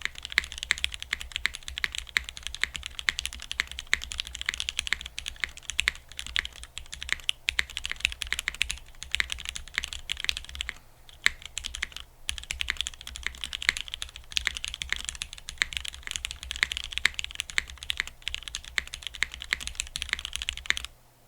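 Fast, continuous typing on a custom mechanical keyboard: lubed, retooled Cherry MX Black linear switches in a gasket-mounted aluminium-plate Geonworks F1-8X with GMK keycaps, pressed hard. Typing pauses briefly twice near the middle and stops just before the end.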